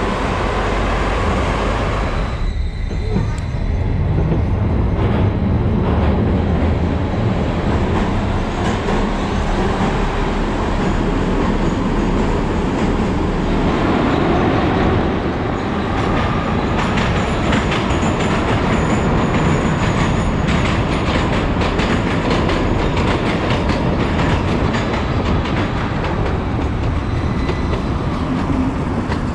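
Volgograd Metrotram light-rail car running at speed, heard from aboard: a steady rumble of wheels on rail, with repeated clacking over rail joints in the second half and a faint high wheel squeal about halfway through.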